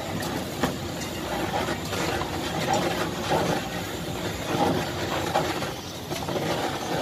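Handheld butane kitchen blowtorch running with a steady hiss as it flames cheese on a kebab wrap, over background crowd chatter.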